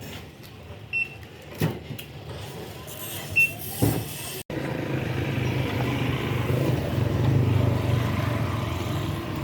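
A few scattered clicks and two short high beeps, then a sudden cut to a steady low rumble of vehicle traffic.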